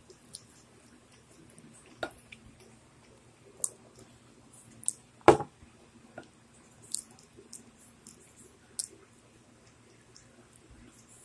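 Close-up eating sounds: scattered wet mouth clicks and smacks while chewing pizza, one every second or so, with one louder knock about five seconds in.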